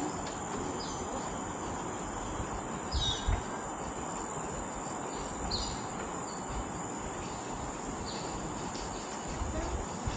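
Tropical forest ambience: a steady high-pitched insect drone, with four short bird chirps a couple of seconds apart. Now and then a low footfall thuds on the metal-mesh boardwalk.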